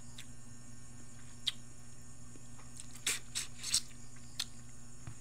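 A man chewing a mouthful of rice and fish close to the microphone: short wet mouth clicks and lip smacks, scattered, with a cluster of them around the middle, over a steady low hum.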